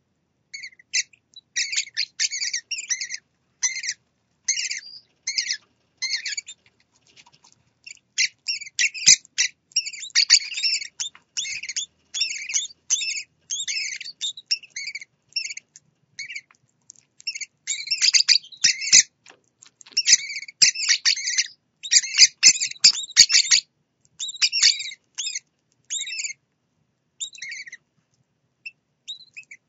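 Parrotlet chicks giving rapid, high-pitched begging chirps in fast runs, broken by short pauses, as the hen bends over them to feed them. A few light knocks come through in the middle.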